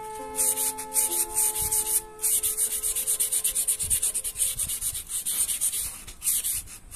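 Steel plane iron of an infill block plane rubbed back and forth on wet P2000 silicon carbide abrasive paper. Quick, even scraping strokes with a hissy grit sound, pausing briefly about two seconds in and again near the end.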